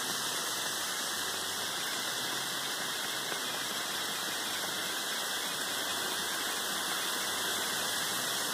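35% hydrogen peroxide fizzing and boiling hard around a pyrite-bearing gold-quartz specimen, a steady hiss that does not change. The boiling comes from the peroxide attacking the sulfide minerals on the rock, with no outside heat.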